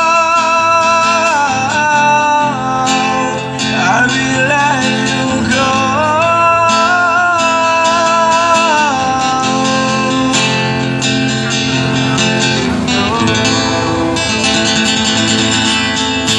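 Live busking music through a loudspeaker: acoustic guitar strumming, with a held, gliding melody line over it for about the first half, then the guitar alone.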